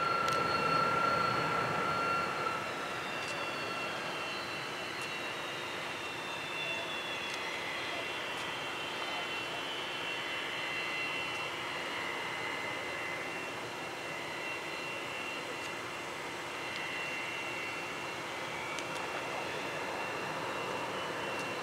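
Twin turbojet engines of an EA-6B Prowler running at low power on the ground: a steady jet whine with several high tones over a broad rush. A few seconds in, one high tone slowly sinks in pitch.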